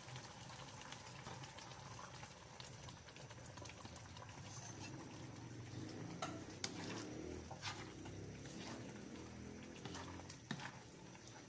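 Coconut milk poured into a pan of frying shrimp paste, then faintly bubbling and sizzling as it heats, with a few knocks of a wooden spoon against the metal pan from about six seconds in.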